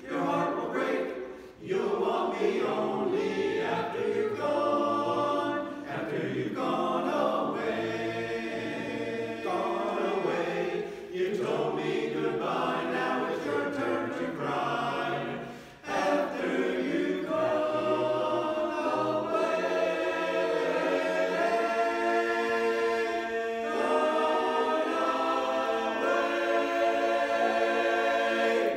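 Barbershop chorus singing a cappella in close four-part harmony, with short breaths between phrases early on and long held chords in the last third, ending on a sustained final chord that cuts off at the very end.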